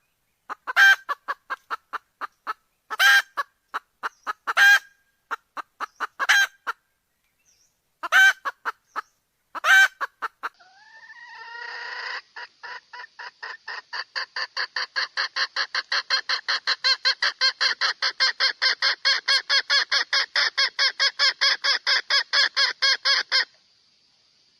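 Red junglefowl hen clucking: loud clucks every second or two with runs of soft quick clucks between them, then, about ten seconds in, a long fast run of clucks at about five a second that grows louder and stops near the end. This is the hen's call to a rooster.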